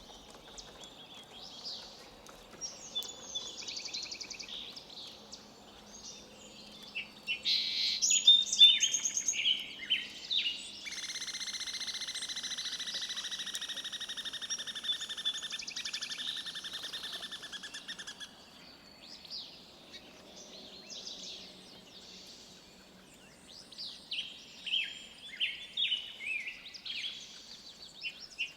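Forest birds chirping and whistling in short, scattered phrases. About eleven seconds in, a long, rapid, buzzy trill sets in and runs steadily for about seven seconds, louder than the chirps around it.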